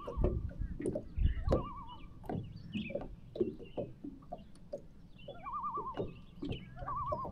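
A common loon giving short quavering tremolo calls, four times, over small knocks and splashes of water lapping against the boat.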